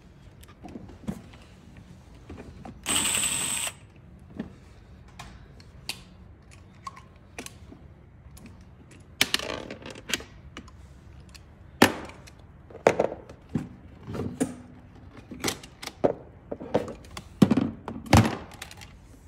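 Hard plastic parts of a children's ride-on toy car being pried and handled: a series of sharp clicks and knocks, denser in the second half, with one short loud rasp about three seconds in.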